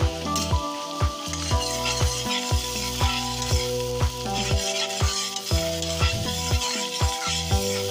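Chopped onion and garlic sizzling in melted butter in a steel pot as a spatula stirs them. Background music with a steady bass beat plays over it.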